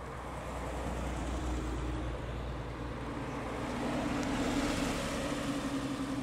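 Two Porsche 911s with flat-six engines drive past at low speed one after the other: a 993-generation car first, then a 997-generation car that is loudest as it passes close about four to five seconds in and then pulls away.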